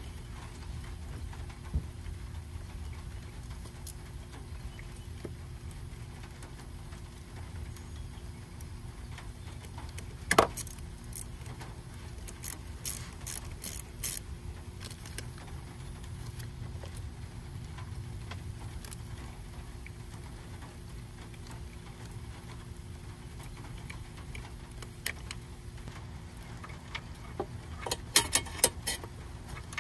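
Light plastic clicks and taps as a car battery's red positive-terminal cover is handled and snapped shut, with a run of quick metal clinks near the end as the battery hold-down rod is fitted. A steady low rumble runs underneath.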